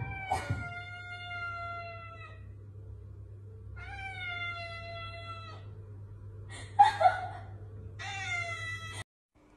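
Tabby cat meowing in three long, drawn-out calls, the first two about two seconds each and the last about one second, each sliding slightly down in pitch. A short louder cry comes just before the last call.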